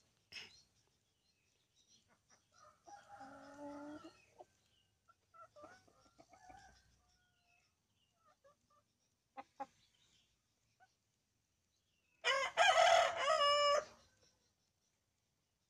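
Chickens calling softly with a few short clucks, then about twelve seconds in a rooster crows once, loud, for under two seconds.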